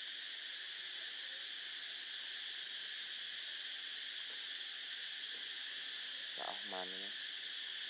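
Steady, high-pitched chorus of insects droning without a break. About six and a half seconds in, one short pitched call rises briefly over it.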